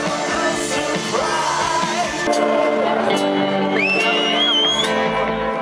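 A live rock band playing loudly, heard from within the festival crowd, with the audience singing along and cheering. About two seconds in the sound cuts abruptly to a different song, and a high sliding note rises around four seconds in.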